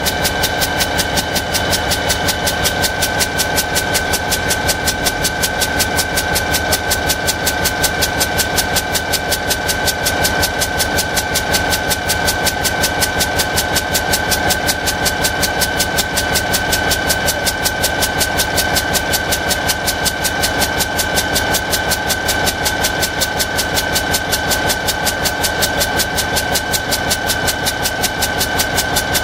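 EMD GT-26 locomotive's two-stroke diesel engine running steadily, with a fast, even pulsing and a constant high whine.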